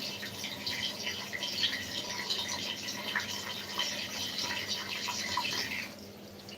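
Bath tap running water into a Dyson vacuum part that holds washing-up liquid, filling it up with a steady splashing. The sound eases off near the end.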